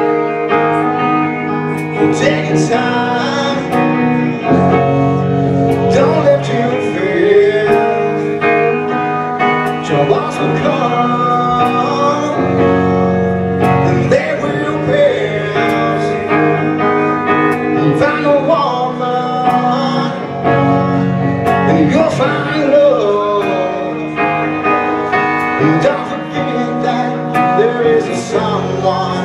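Live band playing amplified on stage: electric guitar, drums with cymbals, and sung vocals over the top.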